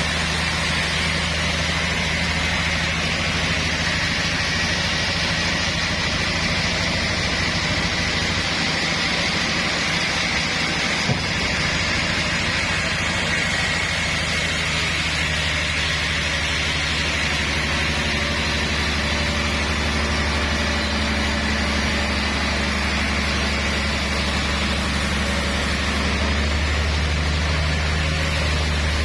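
Sawmill machinery running steadily: a constant low engine drone with a higher whine above it.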